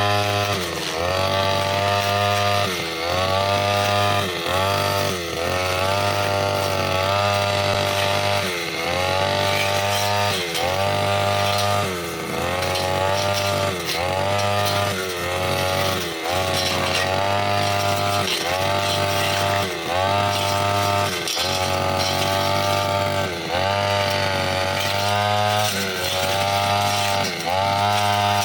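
Petrol brushcutter with a metal blade cutting grass and small woody stems, its engine running at high revs and dipping in pitch then climbing back about every second and a half as the blade is swung through the growth and bogs under load.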